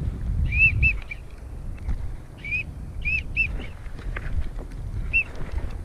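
Wigeon whistles: short, arching whistled notes in twos and threes, repeated several times. Wind rumbles on the microphone, heaviest in the first second.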